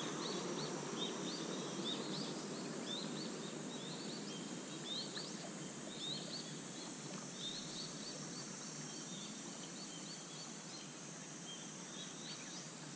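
Birds chirping: many short, high chirps repeating throughout, over a steady outdoor hiss.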